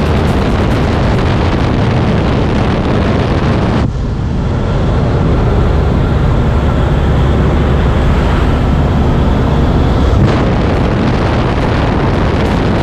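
Loud, steady wind and engine noise inside a jump aircraft with its door open in flight. The rushing-air hiss drops abruptly about four seconds in and comes back about ten seconds in.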